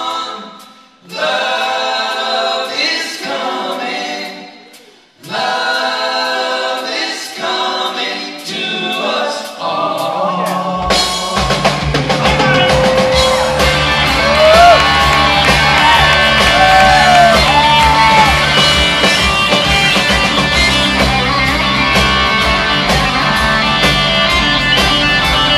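Live rock band in concert: close vocal harmonies sung nearly unaccompanied, with two short breaks, then about ten seconds in the full band with drums, bass and guitars comes back in. A lead guitar line bends and slides over the band.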